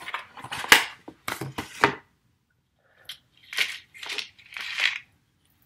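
Brown kraft-paper envelope being crinkled and torn open by hand: a quick run of sharp crackles over the first two seconds, then three softer paper rustles.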